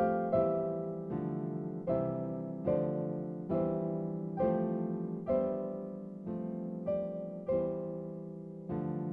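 Background music: slow solo piano, with chords struck about once a second and left to fade.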